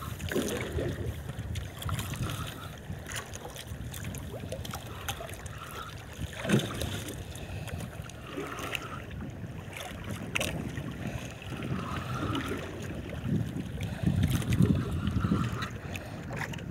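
Wind buffeting the microphone and sea water slapping against the hull of a drifting outrigger boat, with scattered clicks and knocks. The sharpest knock comes about six and a half seconds in.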